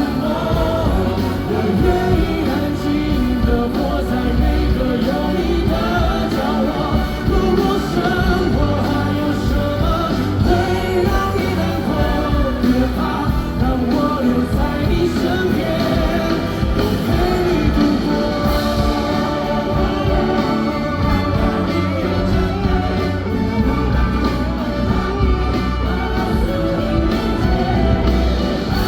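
Live band playing a pop ballad, with singing at times over a steady beat.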